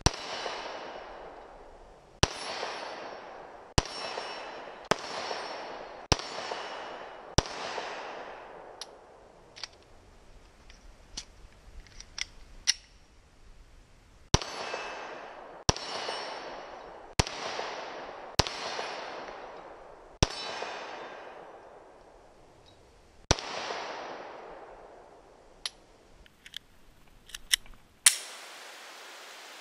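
Glock 43 single-stack 9mm pistol fired twelve times in two strings of six at a steady pace, each shot trailing a long echo off the woods and a faint ring from the steel targets. Between the strings come several seconds of light clicks, and rustling handling noise near the end.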